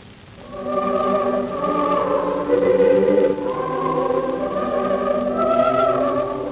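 Mixed choir with orchestra singing Christmas music from a 1948 shellac record, the sound cut off above the treble. A new phrase swells in about half a second in after a brief lull.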